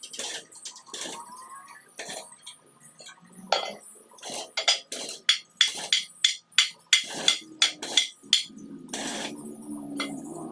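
Steel being struck with a hammer: a run of sharp, ringing blows that quicken to about three a second in the middle. A low hum comes in near the end.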